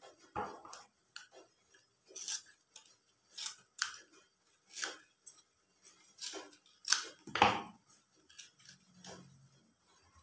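Scissors snipping through the edge of a folded banana-leaf packet: a string of sharp cuts roughly a second apart, the loudest a little after halfway.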